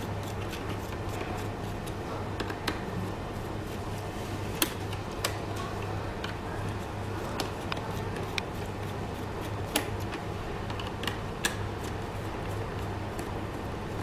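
Scattered sharp clicks and taps of a small screwdriver and hands working on the plastic casing of a robot vacuum cleaner, over a steady low hum.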